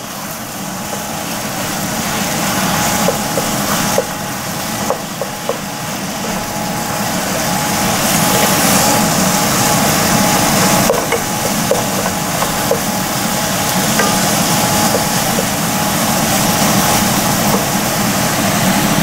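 Ground beef and Italian sausage sizzling in hot olive oil in a nonstick pot, the sizzle growing louder as the meat browns. A wooden spoon scrapes and taps against the pan as the meat is stirred and broken up.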